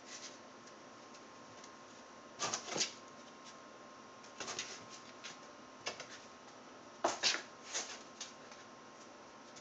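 Cats' paws and claws scratching and scrabbling on cardboard boxes, in several short scratchy rustles, the loudest about seven seconds in.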